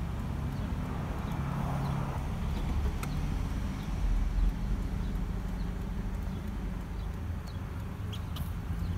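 Steady low rumble of outdoor background noise, with a few faint, short high ticks.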